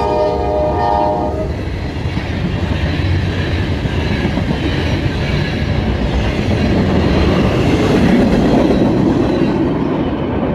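Norfolk Southern train A95's locomotive horn sounding a chord that cuts off about a second and a half in, then the train running past with loud wheel and rail noise that swells near the end.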